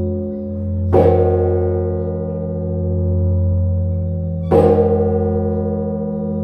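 A large church bell struck twice, about three and a half seconds apart, its deep hum ringing on between the strikes.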